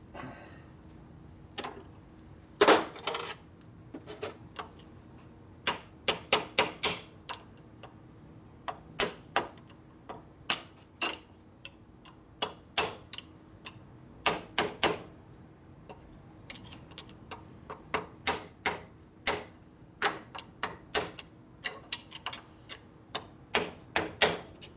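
Sharp metal taps and clicks in irregular quick clusters, the loudest about 3 s in: a tool being tapped down over a Harley-Davidson six-speed transmission mainshaft to seat a snap ring behind its gears.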